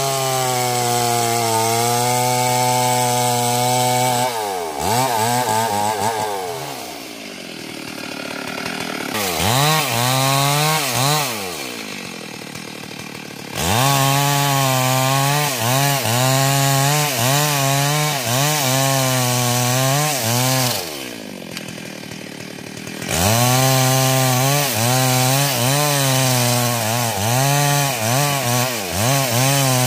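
Stihl MS 382 two-stroke chainsaw cutting into a sengon tree trunk at high revs, its pitch wavering under load. Three times the revs drop off toward idle for a couple of seconds and then pick up again.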